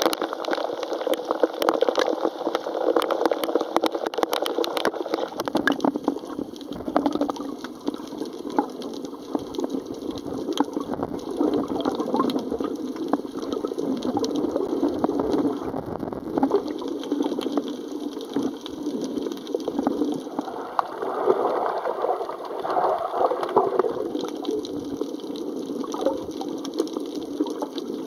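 Sea water sloshing and rushing around a camera carried by a swimming snorkeler. Through the first five seconds there is sharp splashing and crackle at the surface; after that the water rushes dull and muffled, with the camera under water.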